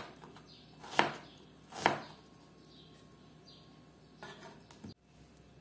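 Knife slicing through an onion and striking the cutting board, two sharp cuts about a second apart, then a few faint knocks shortly after the middle.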